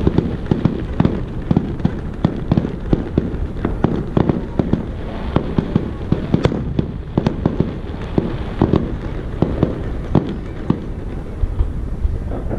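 Fireworks display: a dense, unbroken run of aerial shell bursts and bangs, several a second.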